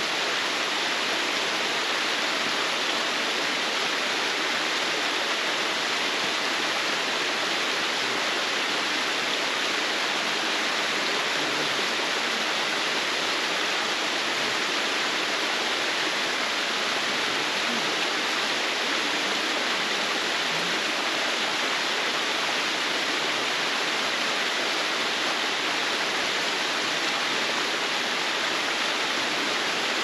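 Small waterfall cascading down a sloping granite-like rock slab into a rocky mountain stream: a steady, unbroken rush of water.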